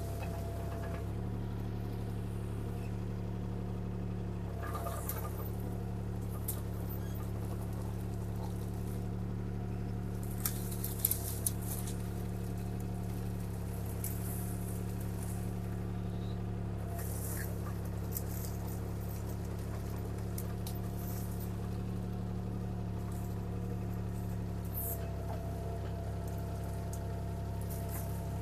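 CAT 303C CR mini excavator's diesel engine running steadily as the machine backs away, with a few short sharp clicks about ten to eleven seconds in.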